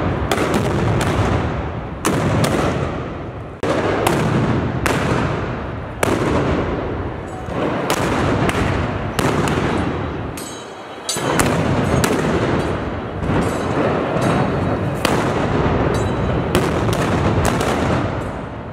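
A rapid, irregular barrage of black-powder blank shots from arquebuses (trabucos), more than one crack a second and overlapping, each trailing into a long echo, with a brief lull about ten seconds in.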